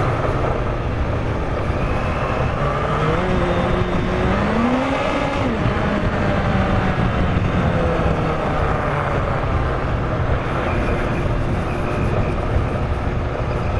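Yamaha FZR1000's inline-four engine pulling in first gear on a dirt track; the revs rise about four seconds in, ease back, then hold fairly steady.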